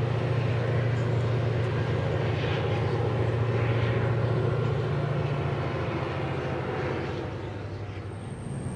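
A large engine running with a steady low drone, easing off near the end.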